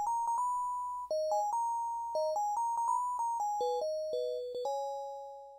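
A short electronic chime melody: a single line of bell-like struck notes, each dying away, ending on a longer note that fades out near the end.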